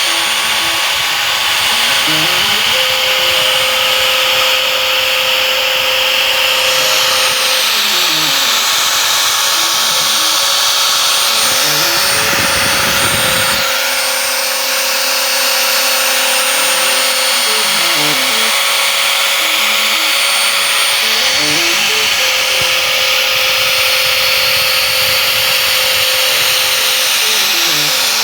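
DIY CNC router milling a speaker front plate: the spindle runs steadily with a high whine and cutting hiss, while the stepper motors whine up and down in pitch every few seconds as the axes speed up and slow down.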